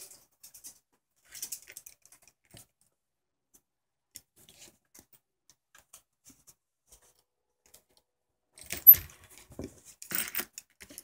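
Light metallic clinking and rattling of a metal spoon lure with a treble hook and a metal tool handled on a tabletop while the knot is snugged down. Faint scattered ticks at first, then a louder run of clinks in the last few seconds.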